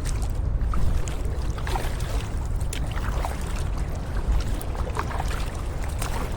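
Kayak moving over calm sea water, with small splashes and trickling of water along the hull every second or two over a steady low rumble of wind on the microphone.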